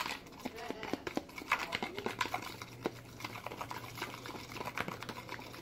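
Stovetop cooking in a pan: dense, irregular crackling and clicking, with a few short squeaks. A low steady hum comes in about two seconds in.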